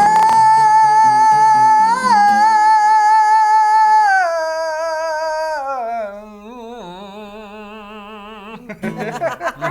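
Rock vocalist holding the long final sung note of a song, with electric guitar under it at first. The note steps down about four seconds in and ends in a wide, strong vibrato that fades away. Talk and laughter come in near the end.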